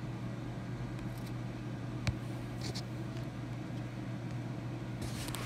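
Quiet room tone with a steady low hum and one short click about two seconds in.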